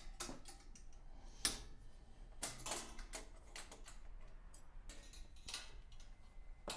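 Irregular light clicks and clinks of sheet-metal parts and small hand tools being worked, about a dozen sharp ticks at uneven spacing, the loudest about a second and a half in.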